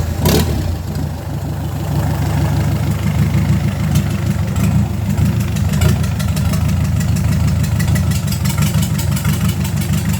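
Freshly reconditioned Toyota 14B four-cylinder diesel engine idling steadily just after start-up, with a fast, even diesel clatter over a low rumble.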